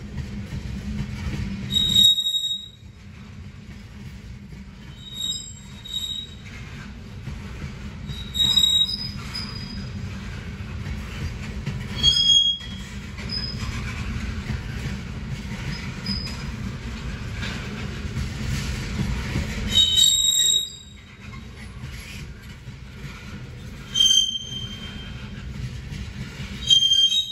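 Loaded ethanol tank cars of a freight train rolling slowly past with a steady low rumble, the wheels giving short high squeals about eight times, each lasting well under a second.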